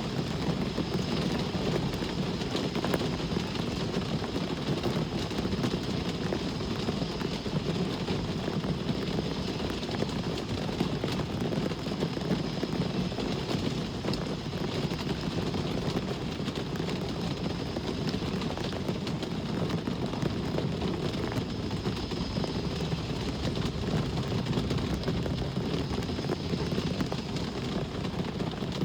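Steady rain with a continuous low rumble of road traffic, even in level throughout.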